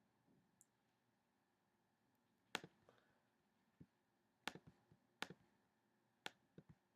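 Scattered single clicks of a computer mouse and keyboard, about eight in all, starting about two and a half seconds in, over near silence.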